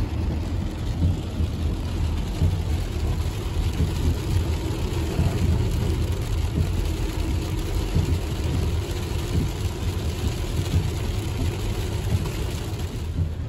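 Inside a car driving through heavy rain on a wet road: a steady low rumble of tyres and engine under a constant hiss of rain and spray on the car.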